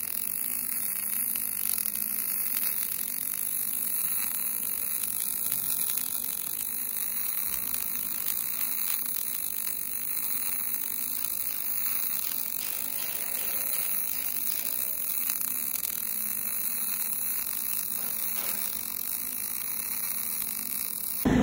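MIG welding arc burning steadily on steel plate: an even hiss with a faint low hum under it, unbroken while the bead is laid.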